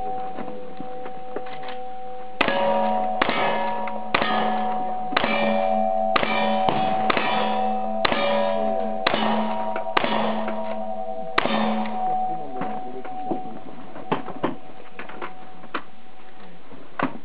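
About ten lever-action rifle shots, roughly one a second, each hitting steel silhouette targets that ring on with lingering clangs. After the string come lighter clicks and a few scattered pops.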